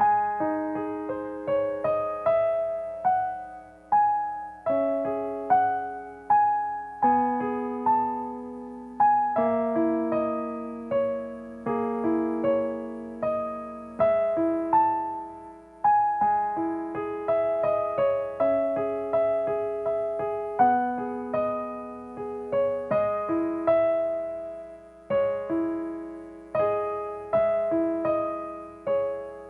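Solo piano playing a slow, gentle improvisation: notes and chords struck about once a second and left to ring and fade.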